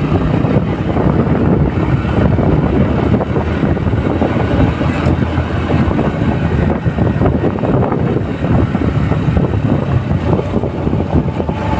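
Motorcycle being ridden at road speed: its engine running steadily, mixed with wind rushing and buffeting over the rider's microphone.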